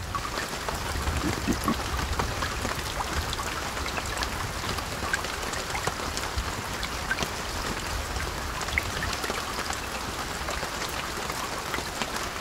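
Light rain pattering on wet tarmac: a steady hiss dotted with many small drop ticks, over a low rumble.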